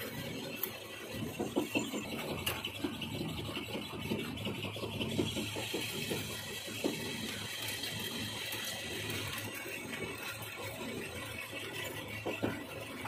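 Metal lathe running and turning a bevel pinion blank, with the cutting tool working the spinning workpiece and curled chips rattling and clicking against the tool post, over the steady hum of the machine.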